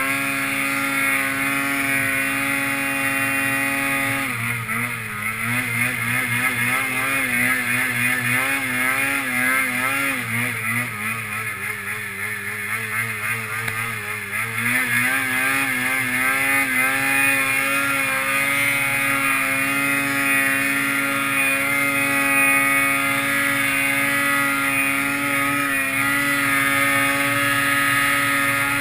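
Polaris mountain snowmobile's two-stroke engine running at high revs under load in deep powder, its pitch wavering up and down with the throttle for about ten seconds from around four seconds in, then holding steady.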